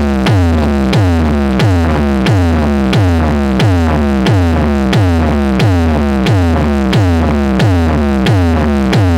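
Electronic DJ sound-check music: a synthesized bass sweep falling sharply in pitch, repeated about three times a second, each with a sharp click on top, over a steady deep bass tone.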